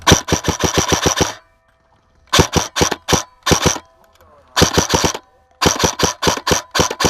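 Airsoft gun firing full-auto in bursts of rapid, evenly spaced shots: a long burst at the start, several short bursts in the middle, and a sustained burst near the end.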